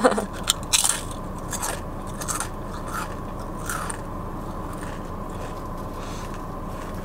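Biting into a crisp Sun Chips multigrain chip and chewing it: a run of sharp crunches in the first two seconds, then fewer and fainter ones as the chip is chewed down.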